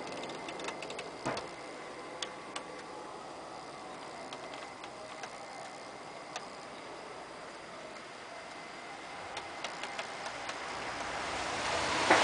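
Steady background hiss with scattered light clicks, and a rushing noise that swells near the end.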